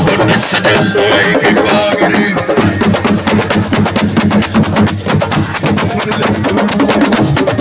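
Live assiko band music: fast, dense drumming and percussion.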